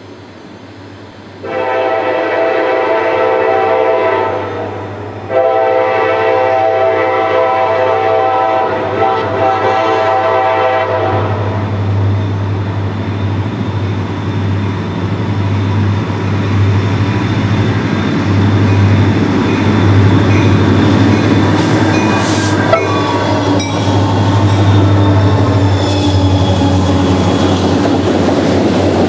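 The lead diesel locomotive's air horn of a CSX freight train sounds two long chords as it approaches, the second about twice as long as the first. Then the low, steady drone of the EMD diesel locomotives grows louder as they pass, with a few sharp clicks near the end.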